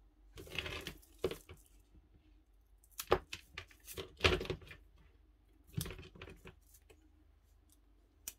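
Handling noise: rustling and scraping as a coiled rubber power cable and a piece of clear plastic are moved about on a workbench, in several short separate bursts with a few sharp clicks and knocks.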